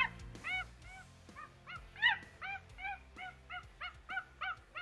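Ape calls: a quick run of short hooting calls, each rising then falling in pitch, about three a second.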